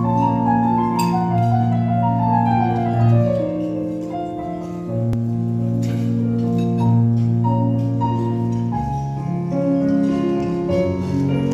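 Cello and electric keyboard playing live together: long bowed low cello notes under higher keyboard notes, with a falling run of keyboard notes about a second in.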